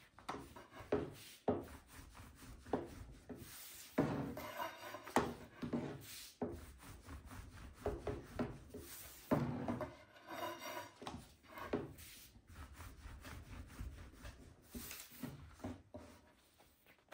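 A long thin metal rolling pin rolling a thin sheet of börek dough wound around it on a wooden tabletop: repeated rubbing strokes with light knocks of the pin on the wood.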